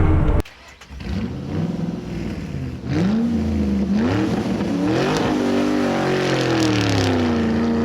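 Car engine revving, its pitch rising and falling several times before it settles into a steady run.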